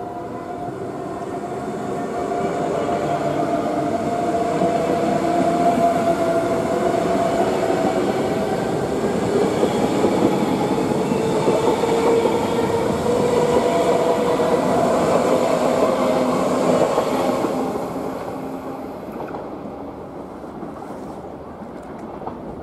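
SBB electric express train running past close by, its rumble growing as it nears and fading after about 18 s, with a steady whine running through it.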